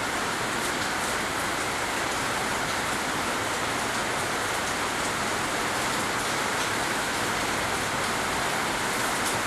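Steady, even hiss of water spraying, as in rinsing a toolbox during cleaning.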